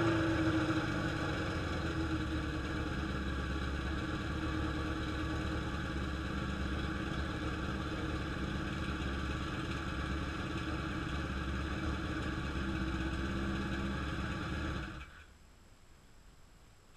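Suzuki GSX-R motorcycle engine, just brought back to life, dropping from a rev into a steady idle, then shut off about fifteen seconds in.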